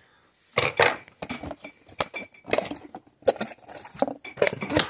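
Plastic and cardboard toy packaging being handled: irregular crinkles, rustles and light clicks, starting after a brief quiet moment.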